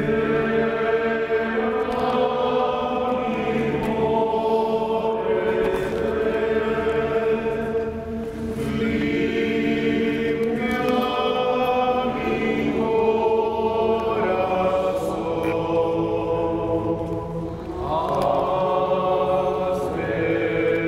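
A choir singing a slow, chant-like hymn in long phrases of held notes, with short breaks between phrases.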